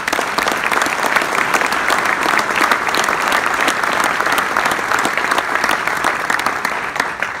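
Loud audience applause, many hands clapping at once, starting suddenly and dying down at the end.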